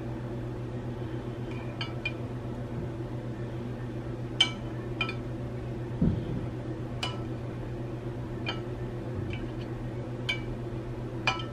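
Metal spatula and serving utensil clinking against a glass baking dish and a skillet while pieces of lamb are lifted over: about eight sharp, separate clinks and a soft thump about halfway through. A steady low hum runs underneath.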